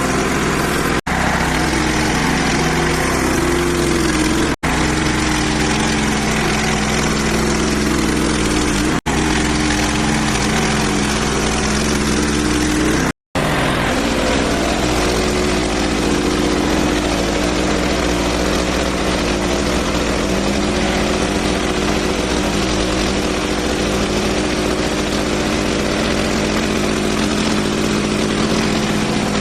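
Hud-Son HFE 30 portable bandsaw mill's gas engine running steadily, cut by four brief dropouts where the footage is edited.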